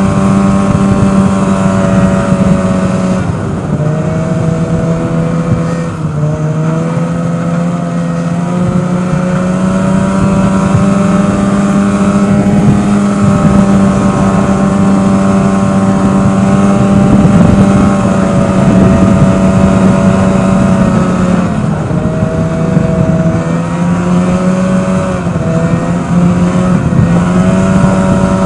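Snowmobile engine running at trail-cruising speed, heard from the rider's seat. Its note drops and picks back up as the throttle eases off and opens again, about three seconds in, again around six seconds, and a few times in the last several seconds.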